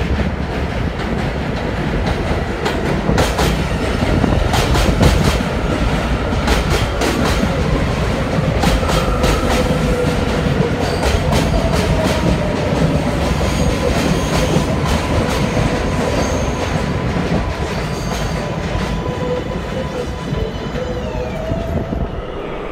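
Subway train running into a station alongside the platform: a steady heavy rumble with clickety-clack of the wheels over rail joints a few seconds in, then wheel squeal. Near the end a whine falls in pitch as the train slows.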